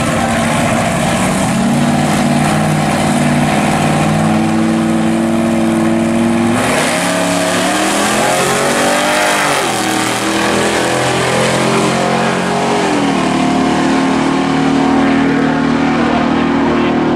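Two Chevrolet Novas' engines at a drag strip start line, held at raised revs that step up twice, then both launch at full throttle about six and a half seconds in, the engine pitch sweeping up and down through the run.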